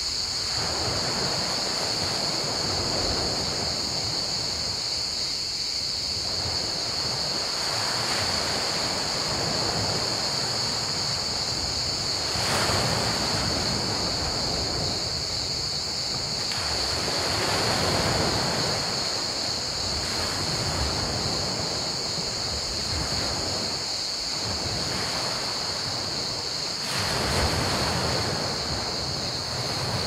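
Small sea waves washing onto a pebble beach, swelling and drawing back every few seconds, with bigger surges about halfway through and near the end. A steady, high-pitched chorus of crickets runs underneath.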